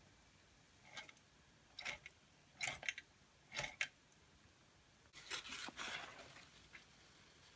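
Georges Carette model 2317 toy vertical steam engine turned over by hand at its flywheel, its cylinder giving a few short puffs of steam and then a longer hiss about five seconds in. The boiler does not yet have the steam pressure to keep the engine running on its own.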